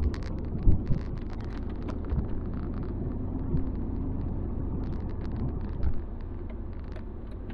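Cabin sound of a 2001 Ford Fairmont AU being driven on a wet road: a steady low rumble of engine and tyres, with many small clicks and a couple of louder knocks.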